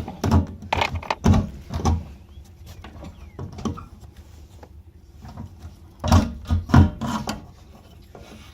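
Clunks, knocks and scraping of a car's fuel pump assembly being worked up out of the fuel tank opening by hand. The noises come in two bunches, one at the start and a second, louder one about six seconds in, with quieter rubbing between.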